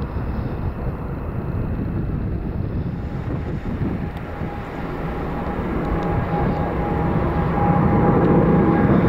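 Jet engines of a Boeing 787-9 climbing out after takeoff: a steady rumbling engine noise that grows louder as the airliner comes overhead, with a steady whine joining a few seconds in.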